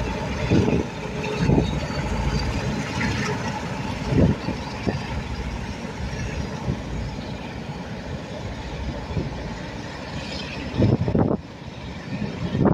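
Class 47 diesel locomotives with Sulzer engines working as they pull away, followed by a train of coaches rolling past, a steady rumble with a few low thumps.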